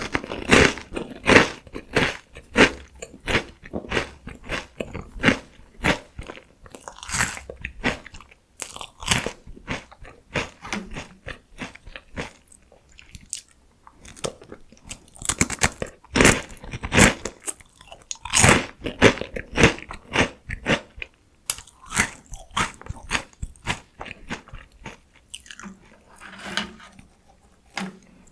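Close-miked crunching and chewing of PoStick salty fried potato sticks: quick runs of crisp bites and crunches, with brief pauses between mouthfuls.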